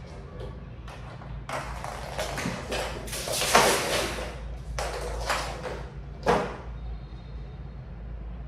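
Cats scampering and playing among toys on floor mats: a run of scuffling, rustling noises and light thumps, loudest about three and a half seconds in, with a sharp knock just past six seconds before it goes quieter.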